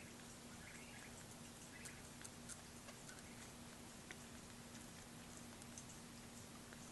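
Faint, irregular soft clicks and smacks of a young kitten suckling milk from a feeding bottle's nipple, over a faint steady hum.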